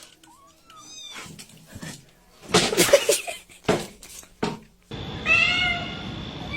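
Domestic cats meowing: several separate calls, with one louder, rougher call near the middle.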